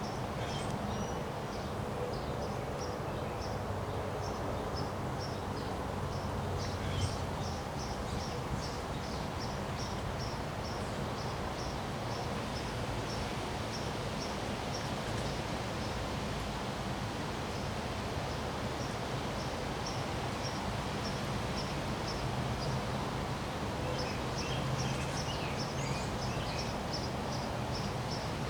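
Wind blowing, with a steady rush and low rumble on the microphone. Through it, a high chirp repeats about twice a second, and a few varied bird calls come in near the end.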